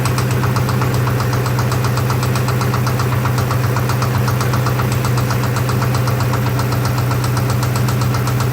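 2003 Ford Mustang Mach 1's 4.6-litre DOHC V8 running at a steady idle with a fast, even knock from the rear of the engine.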